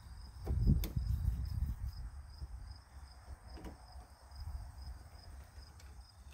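Crickets chirping steadily in the background in a fast pulsing trill. A low rumble swells about half a second in and is the loudest sound, with a few light clicks from a screwdriver working at the steering wheel's centre.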